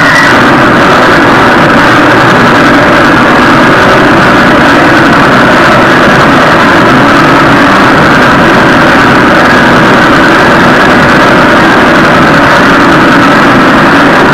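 Amplified live band playing very loud, distorted noise at near full level, a steady dense wall of sound with no clear beat, clipping the recording.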